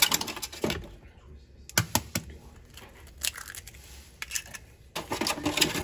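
Eggs being cracked into a mixing bowl: several sharp taps and cracks of eggshell, with crackling as a shell is pulled apart by hand.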